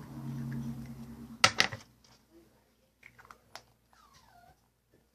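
Small plastic toy capsules being handled: a sharp double click about one and a half seconds in, then faint scattered clicks. A low hum runs underneath and stops just before two seconds in.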